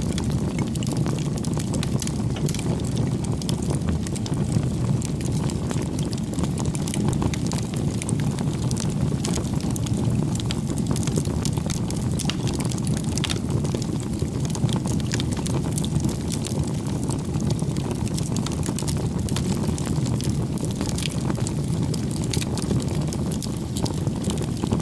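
Wood fire burning, with frequent irregular crackles and pops over a steady low rumble.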